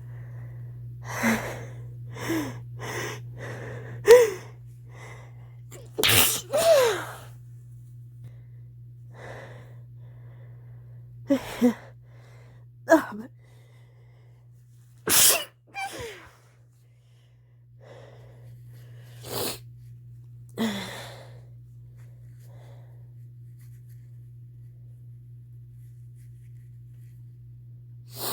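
A person with a head cold stifling a run of sneezes: about a dozen short, sudden sneezes and breathy catches spread over the first twenty seconds, the loudest about four, six and fifteen seconds in. A steady low hum sits underneath.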